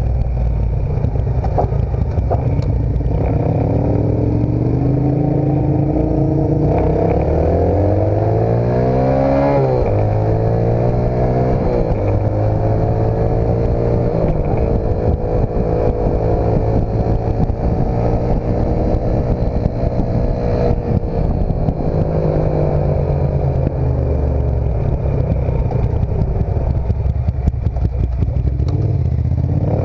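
Dirt bike engine running under way, its revs climbing and dropping several times as it works through the gears. It climbs steeply about nine seconds in and drops sharply, then runs steadier through the middle.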